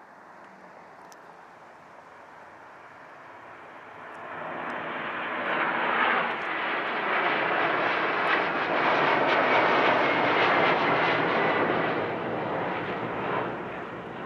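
Boeing 767-400ER's twin General Electric CF6 turbofans at takeoff power as the jet lifts off and climbs out. The jet roar swells about four seconds in and is loudest for several seconds, with a faint high whine over it, then begins to fade as the aircraft climbs away.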